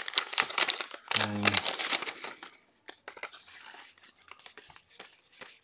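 Waxed-paper wrapper of a 1981 Topps football card pack crinkling and tearing as it is pulled open by hand, then faint light clicks of the cardboard cards being handled.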